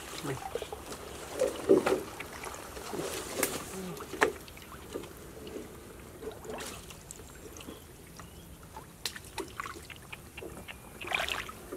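Shallow pond water splashing and trickling as a hand gropes in the water and the woven bamboo fish basket is moved, in irregular splashes, the sharpest within the first few seconds.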